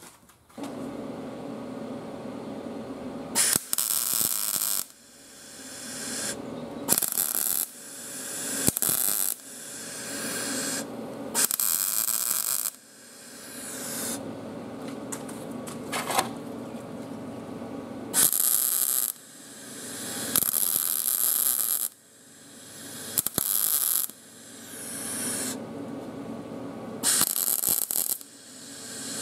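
Wire-feed (MIG) welder laying tack welds on a mower deck's broken wheel bracket: a steady electrical hum broken by about eight short bursts of arc crackle.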